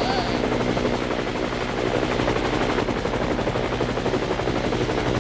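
Toy helicopter making a steady rapid rotor-chopping whir over a low hum.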